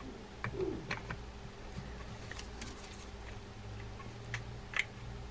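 A handful of light, irregular clicks and taps as the side cover is fitted onto the body of an Okuma Komodo SS baitcasting reel.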